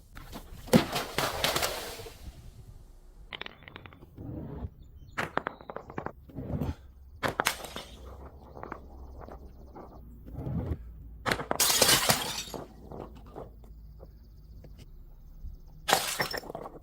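Glass bottles breaking and being crushed: a string of sharp cracks and crunching bursts, the longest about two-thirds of the way through and another near the end.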